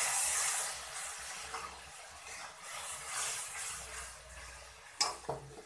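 Hot onion-and-spice masala in a kadai hissing as water hits it, the sizzle dying down within the first second. A metal spatula then scrapes and stirs the watery masala in repeated strokes, with a sharp clink of spatula on the pan about five seconds in.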